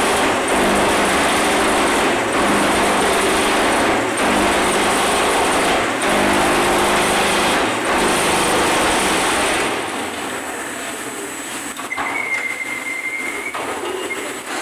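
Concrete solid-block making machine running: loud, dense vibration in stretches of about two seconds with short breaks between them, which stops about ten seconds in. A quieter machine noise carries on, with a high squeal lasting about a second and a half near the end.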